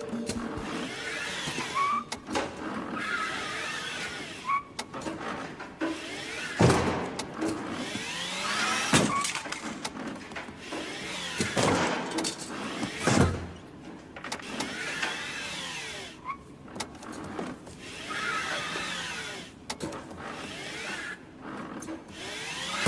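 A small electric vehicle motor whining up and down in short back-and-forth runs, the pitch rising and falling with each move. Several hard knocks cut in along the way, about 7, 9, 12 and 13 seconds in.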